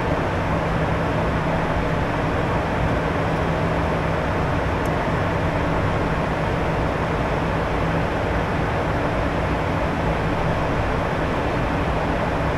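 Steady cockpit noise of a Gulfstream G150 business jet with its two Honeywell TFE731 turbofans running: an even rush with a constant low hum.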